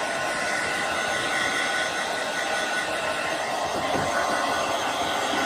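Handheld hair dryer running steadily, blowing air through wet hair, with a steady whine over the rush of air.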